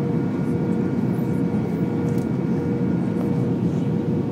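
Airbus A321-200 cabin noise heard from a window seat on approach with the flaps extended: a steady rush of airflow and engine noise with a constant hum. A few fainter high whining tones drop out about three seconds in.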